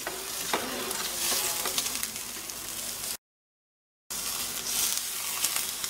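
A piece of red meat sizzling steadily as it sears in a stainless frying pan, with a light knock about half a second in. The sound drops out completely for about a second midway.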